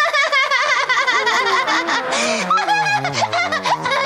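A woman's put-on laugh, high-pitched and rapidly warbling. In the last second or so it drops step by step in pitch into a run of short ha's.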